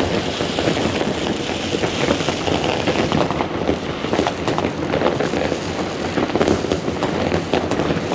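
Many fireworks and firecrackers going off at once: a dense, unbroken crackle of bangs and pops.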